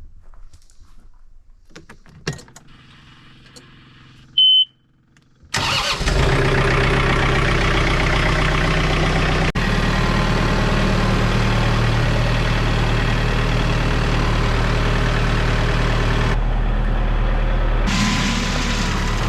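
A short high beep, then an engine starts about five seconds in and runs steadily at idle.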